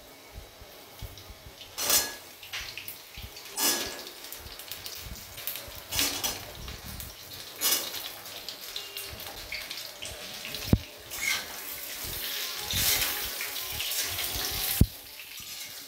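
Peeled potato pieces dropped into hot oil in a metal kadai, each drop setting off a short burst of sizzling, about every two seconds. Near the end the potatoes are turned with a metal spatula, with steadier sizzling and a couple of sharp clinks of metal on the pan.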